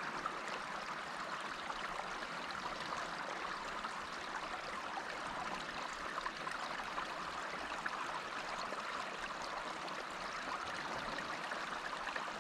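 Creek water running steadily, a constant rushing and trickling as it flows through and over a small beaver dam.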